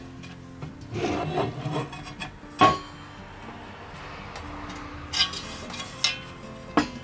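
Food-preparation sounds: a scraping, rubbing noise about a second in, then several sharp knocks, over soft background music.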